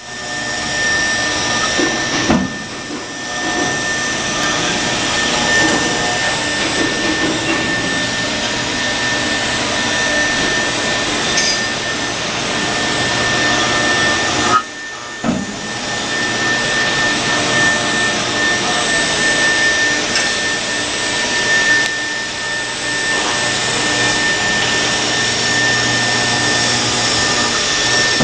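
Chencan 5-axis CNC router's spindle running with a steady high whine while its ball-end cutter carves a foam-like block, with a steady hiss of cutting. The sound drops briefly about halfway through, then carries on.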